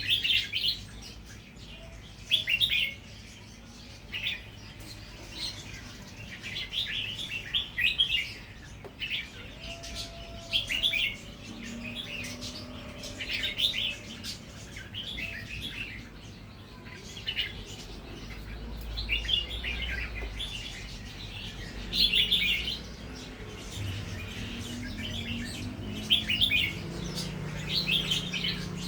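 Red-whiskered bulbul singing short, warbled phrases every second or two, some of them the doubled phrases that bulbul keepers listen for.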